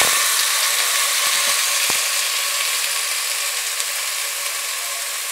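Soaked rice sizzling and crackling in hot oil with cumin seeds in a steel pot, a steady hiss that slowly eases, with a few light clicks early on.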